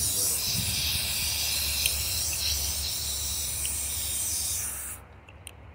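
Garden hose spraying water onto a dog's coat and a wooden kennel floor: a steady hiss that cuts off suddenly about five seconds in.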